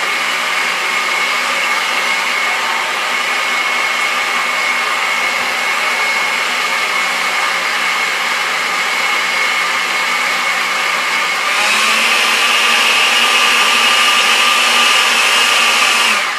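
Countertop blender running steadily, puréeing chicken livers and hearts with rice and broth. About three-quarters of the way through, its whine steps up in pitch and gets louder. Near the end it is switched off and winds down.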